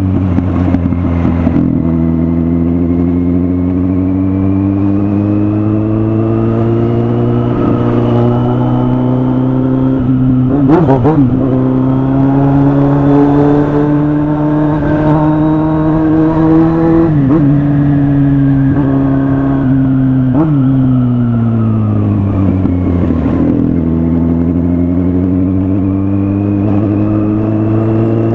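Kawasaki Z800 inline-four motorcycle engine under way. Its pitch climbs slowly for about fifteen seconds, steps down twice, sinks and then climbs again as the throttle is worked.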